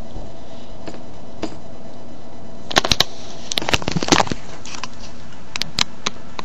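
Handling noise from a camera being picked up and moved: scattered clicks and rustling, bunched about three and four seconds in, over a steady hiss.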